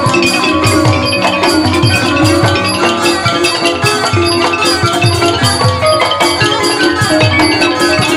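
Thai piphat mai khaeng ensemble playing an instrumental passage: wooden ranat xylophones in quick running notes over a steady beat of low drum strokes.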